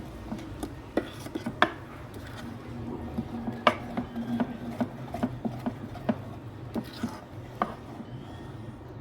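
Knife chopping on a cutting board in irregular knocks, about one or two a second, over a steady low hum.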